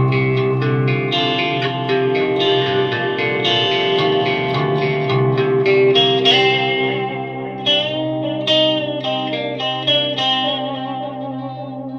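Electric guitar played through a Noise Pollution Plush Box overdrive pedal into a Randall amp's clean channel. Chords and picked single notes ring out with reverb and die away near the end.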